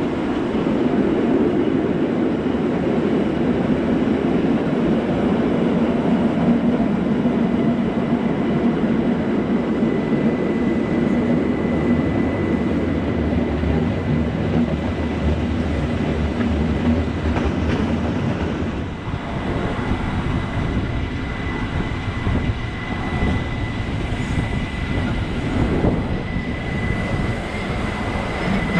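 Rhaetian Railway ABe 8/12 Allegra electric train running downhill through curves, heard from a carriage window: a steady rumble of wheels on rail, with a thin, high, steady tone that comes in about ten seconds in and holds on.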